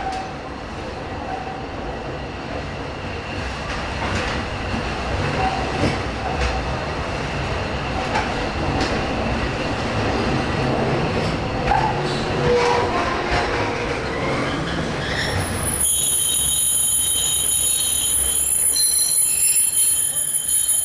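Walt Disney World Railroad narrow-gauge steam train running along the track, its cars and wheels giving a continuous rumble and clatter. About sixteen seconds in, a high, steady wheel squeal sets in and continues.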